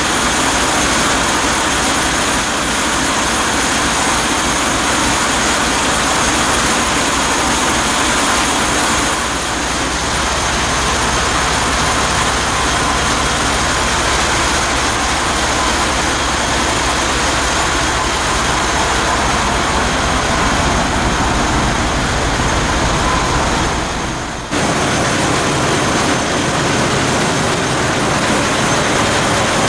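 Loud, steady din of a Burmeister & Wain seven-cylinder two-stroke marine diesel running, close up in its engine room. About three-quarters of the way through the sound briefly dips.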